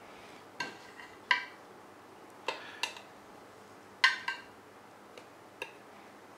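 Metal cutlery clinking against a china plate as roasted cherry tomatoes are set on it: a scatter of short, sharp clinks at uneven intervals, about nine in all.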